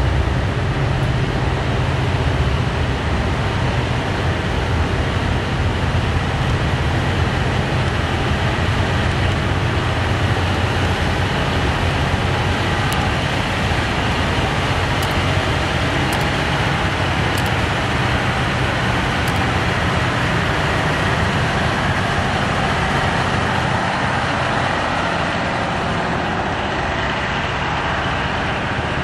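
KiHa 183 diesel multiple unit running slowly past at close range, its underfloor diesel engines giving a steady low drone. The sound eases slightly near the end.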